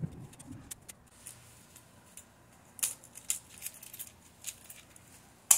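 Small metallic clicks and scrapes of a precision screwdriver working the tiny screws of a slim DVD drive's spindle motor assembly, with a sharper click near the end.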